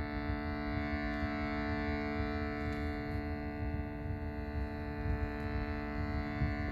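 Several sustained, overlapping ringing tones from sound-therapy singing bowls, held steady, with a low rumble underneath.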